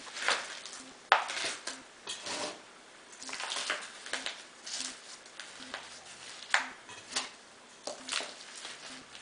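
Hands firming potting soil around a plant in a thin plastic flower pot: irregular crackles, scrapes and rustles of soil and the plastic pot, with a sharper crack about a second in and another around six and a half seconds.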